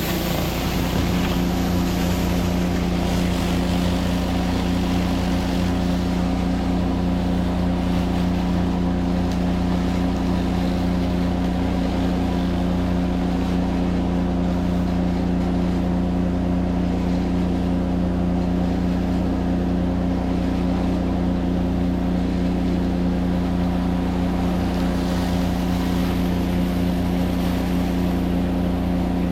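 Pressure washer engine running steadily at a constant speed, with the hiss of the water spray rising and falling over it.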